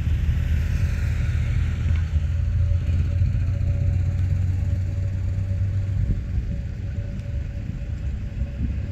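Airbus A320neo jet engines running as the airliner rolls along the runway after landing: a low rumble with a steady whine, the rumble easing about six seconds in.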